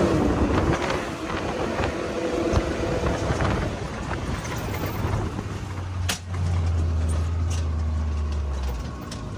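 Can-Am Maverick X3 Max Turbo RR side-by-side's turbocharged three-cylinder engine running under way, with rumble from the tyres and chassis. About six seconds in there is a sharp click, then a steady low drone as the machine slows, getting quieter near the end.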